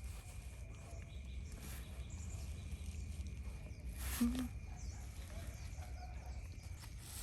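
Quiet outdoor ambience with a faint steady high whine and a low rumble, broken by one short rustle or knock about four seconds in.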